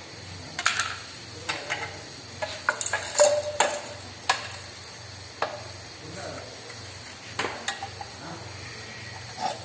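Irregular metallic clinks and knocks of tools and parts being handled during work on a scooter's kick-start assembly, over a low steady hum.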